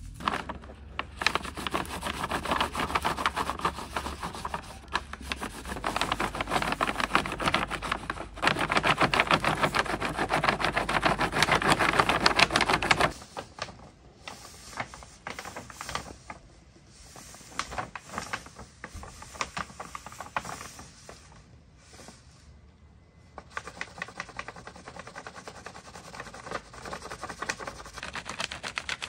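Pencil rubbing fast back and forth over paper laid on a floor (frottage), a dense dry scratching that stops abruptly a little before halfway. Then come softer rustles of a paper sheet being handled, and near the end rubbing strokes over paper laid on a birch log.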